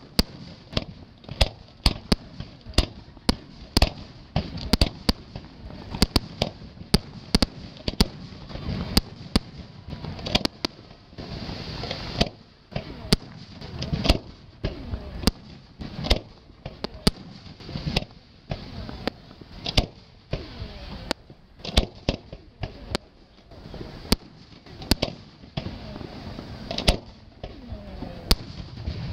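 Aerial fireworks shells bursting one after another, a steady run of sharp bangs about one or two a second.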